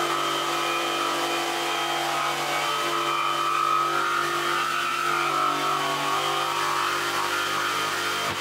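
Corded jigsaw running steadily as it saws through a sheet of plywood along a straight line.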